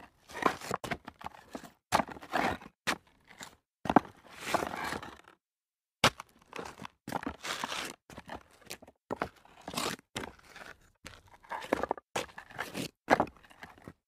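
Sneakers stepping on loose rock debris: an irregular series of gritty, crunching footsteps, with a brief silent pause about five seconds in.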